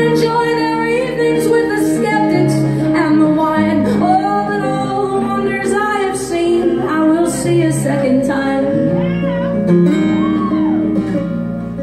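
Live song: a woman singing over acoustic guitar, her voice holding and bending long notes, with the music easing a little near the end.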